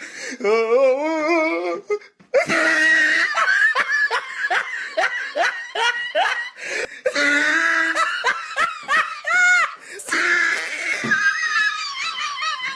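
People laughing hard in rapid, pulsing bursts of belly laughter, with a short high-pitched squeal about nine and a half seconds in.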